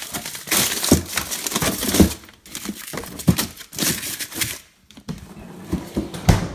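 Plastic packaging crinkling and rustling in three stretches, with several sharp knocks, as items in a freezer are handled.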